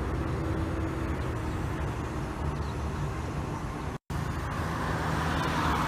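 Coach buses' diesel engines running at low speed, a steady low rumble with a faint engine hum. The sound cuts out for an instant about four seconds in.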